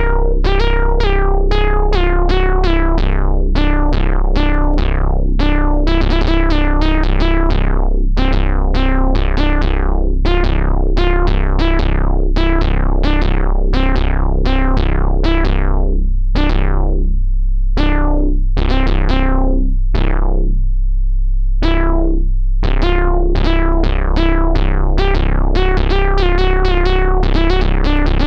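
Instrumental music: a fast stream of short, quickly fading notes over a steady low bass, thinning to sparser notes for a few seconds past the middle.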